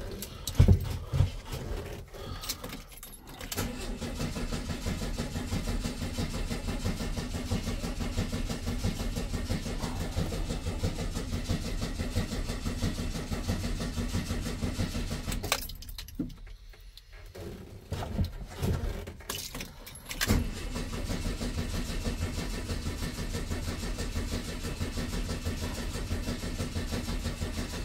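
Volkswagen Beetle's air-cooled flat-four cranking on the starter in two long tries, about twelve seconds and then about eight, without catching. Key clicks and jangling come at the start and between the tries. The engine won't start, which the owner puts down to the carburettor float.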